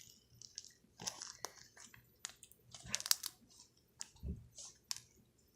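Slime being squeezed and worked by hand, making irregular wet crackles and pops.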